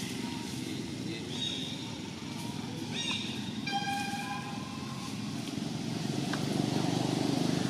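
A steady low rumble like a motor or distant traffic, with a few short, high-pitched whistling calls from an animal about a second in and again around three to four seconds in.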